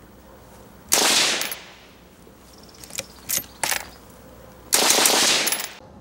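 Half-scale M2 Browning replica machine gun in .22 Magnum firing on full auto. It fires a short burst about a second in, a few sharp single reports, then another short burst near the end. The halting fire is something the shooters put down to a broken firing pin safety, which also let a round fire out of battery.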